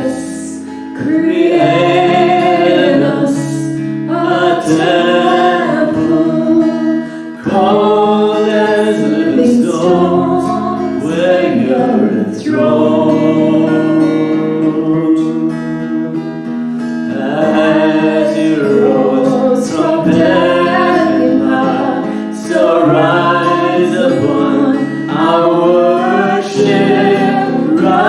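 Worship music: voices singing held, wavering phrases over guitar accompaniment.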